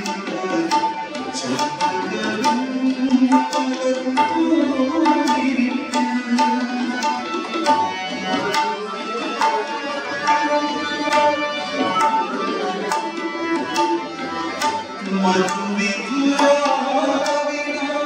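Live music with tabla strokes keeping a quick rhythm under a melody of short repeated notes.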